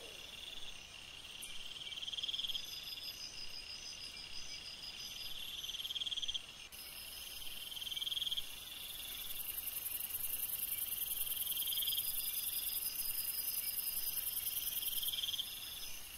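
Night chorus of chirping insects: trilled phrases that swell and stop about every two seconds, with a very high, steady, pulsing trill joining in about seven seconds in.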